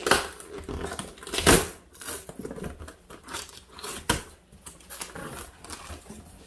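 Packing tape being ripped off the top of a cardboard box, tearing away the box's surface paper, in a series of rips and scrapes; the loudest rip comes about a second and a half in. The cardboard flaps are then pulled open.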